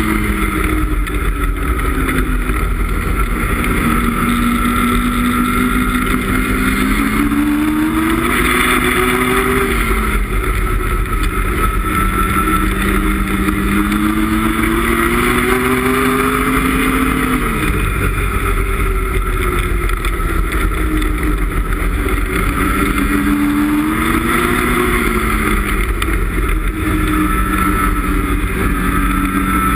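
Ski-Doo MXZ X snowmobile's 850 E-TEC two-stroke twin running under way. Its pitch rises and falls several times as the throttle is opened and eased.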